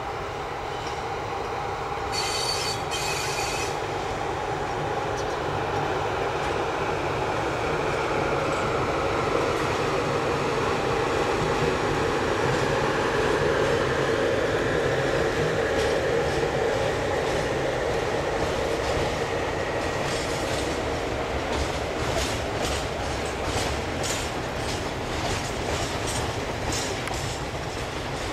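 Freight train passing, an electric locomotive hauling tank wagons, with a steady rumble that swells as the train draws level. About two seconds in there is a brief high-pitched squeal, and from about twenty seconds in the wagon wheels click over the rail joints.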